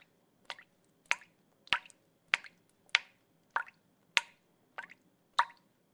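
Water drops falling one at a time into water, about one drop every 0.6 seconds, each a short plink with a quick falling pitch.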